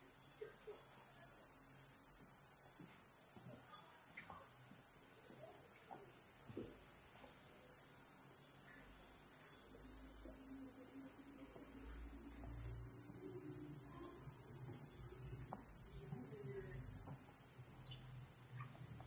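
A chorus of summer cicadas in the garden trees: a steady, high-pitched drone.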